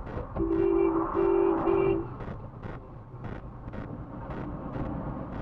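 Car horn sounding three short blasts in quick succession, over steady road and engine noise heard from inside a moving car.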